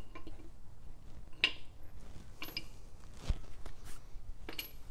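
A few scattered light metallic clinks and one dull knock as brake hardware bolts and hand tools are handled and set down.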